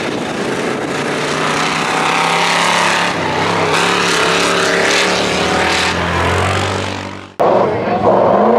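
Leyland truck engine running hard at a steady pitch, then cutting off abruptly with the edit near the end. Another engine, the Holden ute's, then comes in and starts revving up.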